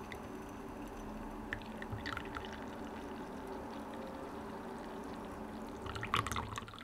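Brewed herbal tea poured in a thin steady stream through a stainless steel mesh strainer into a ceramic bowl, with a few small splashy ticks about two seconds in. Louder splashing comes near the end, and then the pour stops.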